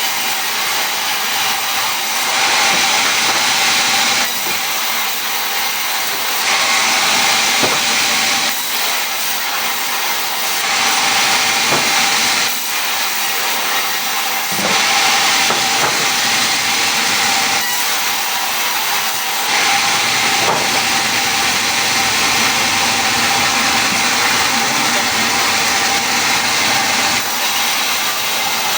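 A power tool working wood, running continuously and growing louder and softer in passes of about two seconds each.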